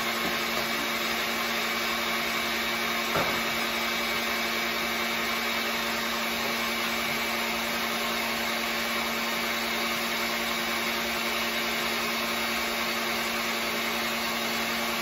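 Stand mixer running steadily at its highest speed, its whisk whipping egg whites as they near stiff peaks; a constant motor hum and whine. A single light knock sounds about three seconds in.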